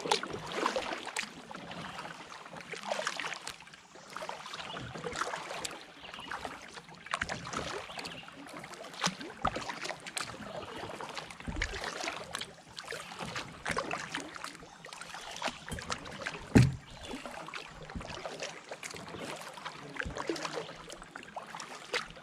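Kayak paddling: paddle blades dipping and splashing in calm water, with drips and small irregular knocks, and one louder knock about three-quarters of the way through.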